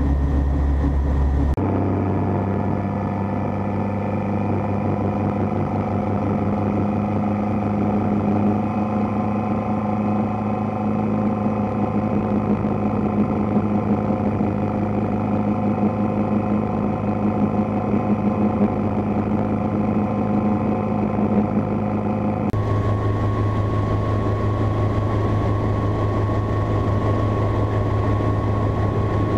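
Light piston helicopter's engine and rotor running, a steady drone. Its tone changes abruptly twice: about a second and a half in and again near the end.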